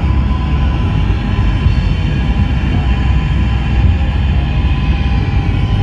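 Steady low rumble of a car's tyres and engine at highway speed, heard from inside the cabin.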